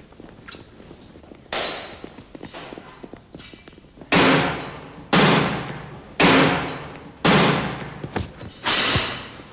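Heavy crashes and thuds as things and bodies are flung and smashed down in a violent ransacking: one crash, then five more in a steady run about a second apart, each sudden and dying away.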